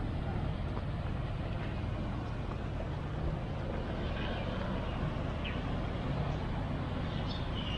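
Outdoor street ambience: a steady hum and low rumble of road traffic, with a few faint short higher sounds over it.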